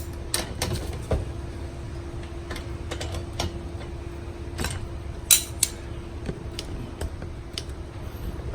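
Irregular metallic clicks and clinks of two wrenches working a nut and bolt tight on a ping pong table's leg bracket, the loudest a pair of sharp clicks about five seconds in, over a faint steady hum.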